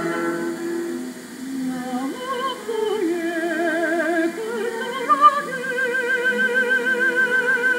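Classical-style solo singing of a Korean art song (gagok), in a strong operatic vibrato: a few short rising phrases, then a long held note from about halfway through.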